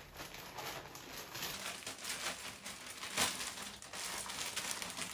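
Plastic courier packaging crinkling and rustling in irregular bursts as a parcel is opened by hand, with a sharper crackle about three seconds in.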